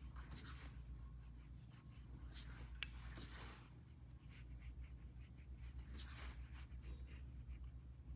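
Faint scratchy brushing and rubbing as an acrylic nail brush works glitter acrylic onto a long nail, with one sharp click a little under three seconds in, over a low steady hum.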